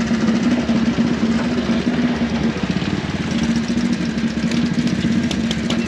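Vintage motorcycle engine running with rapid, even firing pulses at a steady pitch that dips briefly about halfway through.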